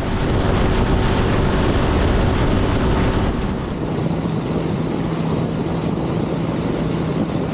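Outboard motor of a small rescue boat running at speed, mixed with rushing wind and water from the hull and wake. The engine tone drops to a lower steady hum a little past three seconds in.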